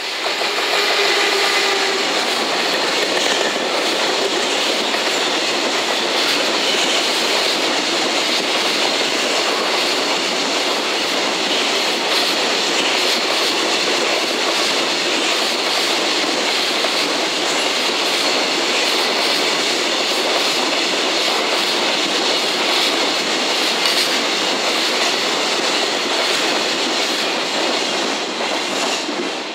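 Container freight train hauled by an EF210 electric locomotive passing close by: a steady loud rush of steel wheels on rail with the clickety-clack of wagons over rail joints. The sound falls away near the end as the last wagon goes by.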